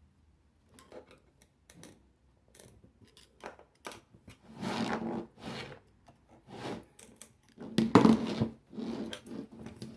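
Irregular metallic clicks, knocks and scrapes as the fan motor's stator coil is worked loose and pulled out of its housing, with the loudest bursts about five and eight seconds in.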